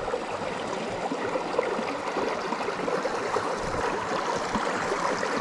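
Mountain brook running, a steady rush of water.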